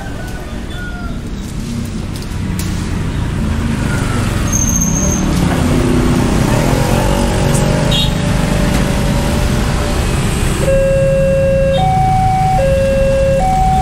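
Street traffic noise at a road crossing. About 11 s in, a railway level-crossing alarm starts: an electronic two-tone warning that switches between a lower and a higher tone about once a second, sounding as the red flasher lights to warn of an approaching train.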